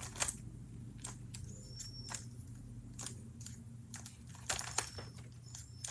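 Rubik's cube layers being turned over and over, a string of light, irregular plastic clicks as freshly applied petroleum jelly is worked into the mechanism.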